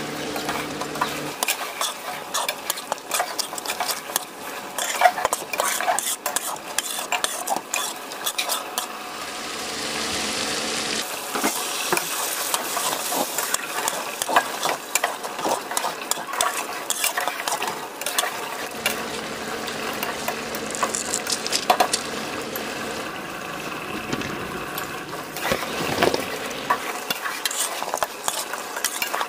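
Spatula stirring and scraping food in a metal pot, many quick clicks of the spatula against the pot, with the food sizzling as it fries. The sizzle swells to a steadier, louder hiss for a few seconds about ten seconds in.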